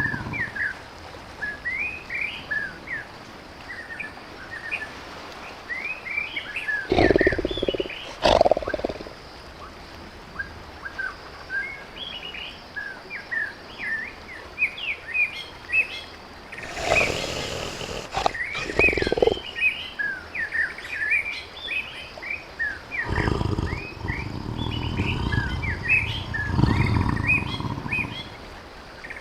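Tiger roaring and growling in several separate bursts, the longest a drawn-out growl near the end, over continual chirping of small birds.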